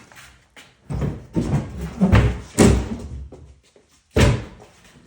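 Garage cabinet being handled: a run of irregular knocks and thumps, then a single sharp bang a little past four seconds, like a cabinet door shutting.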